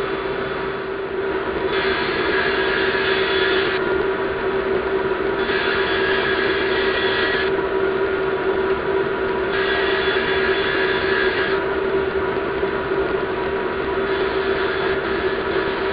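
Woodshop machinery, a table saw with its dust collector, running with a steady hum, while a louder rushing noise comes and goes about every four seconds, four times.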